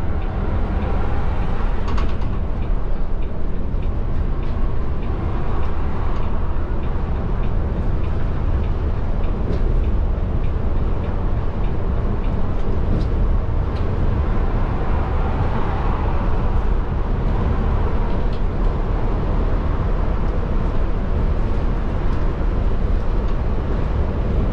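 Steady interior noise of a Caetano Levante coach cruising at speed: a deep rumble of engine, tyres and road with wind noise over it, and occasional faint clicks.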